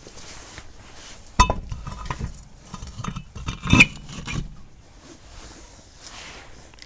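Metal clinks and clanks from tire-change tools and hardware: two sharp ringing strikes, about a second and a half in and near four seconds, with lighter clicks and knocks between them.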